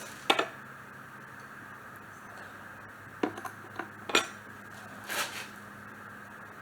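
Small metal tools and parts clinking and knocking together while a lawnmower wheel is taken off its axle. There is a sharp clink right at the start, a quick cluster of clinks a little past three seconds in, and one more about five seconds in.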